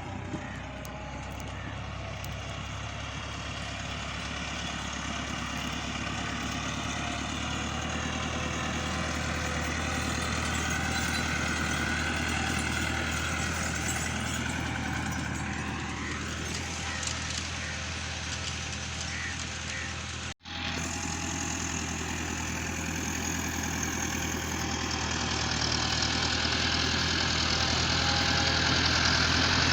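Tractor engine running steadily, its pitch shifting slowly. It cuts out for an instant about two-thirds of the way through and grows louder near the end.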